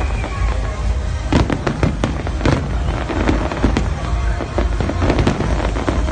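Fireworks display: aerial shells bursting in a dense, irregular series of sharp bangs and crackles over a continuous low rumble.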